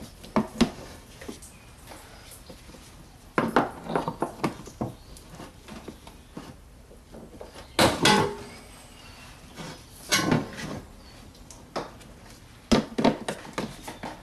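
Irregular clicks, knocks and clatter of hands and tools working loose plastic fasteners and parts around a car's wheel arch, coming in several short bursts with pauses between.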